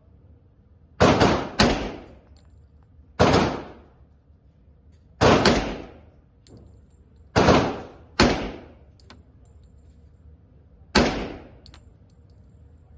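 Glock 20 pistol with a 6-inch match barrel firing .40 calibre rounds: seven single shots at an uneven pace, two of them close together about a second and a half in and two more about eight seconds in. Each shot has a short echoing tail.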